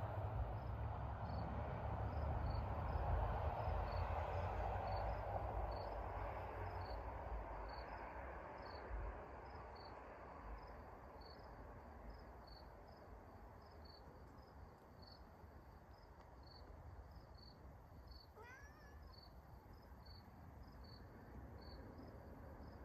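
Outdoor ambience: a cricket chirping steadily, about one and a half chirps a second, under a broad rushing noise that swells in the first few seconds and then fades away. About three quarters of the way through there is a brief animal call that bends in pitch.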